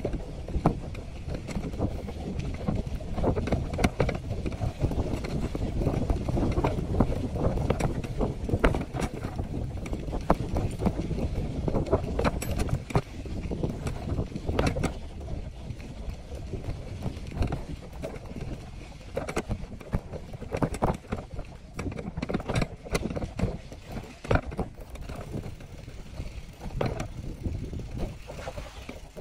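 Bicycle riding over a bumpy dirt path: a steady rumble from the tyres and wind on the microphone, with frequent sharp rattles and clicks as the bike and its wire basket jolt over the bumps.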